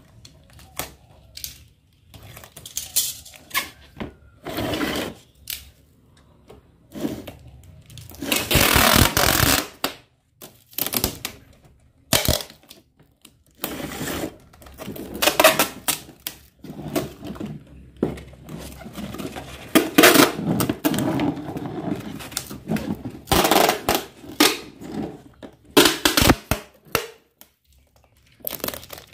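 Clear packing tape pulled off its roll again and again in noisy strips, the longest about a second and a half, with short knocks and rustles from handling the plastic crate in between.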